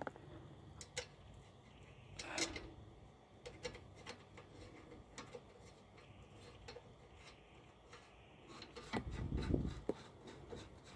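Light clicking of a ratcheting wrench, a few clicks a second, as a nut is run onto a sway bar end link stud. A short scrape about two seconds in and a heavier rubbing knock near the end come from handling the tool and parts.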